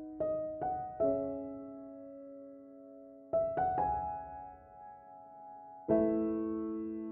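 Background piano music: slow, gentle notes struck in small groups of three, each left to ring and fade, then a chord about six seconds in.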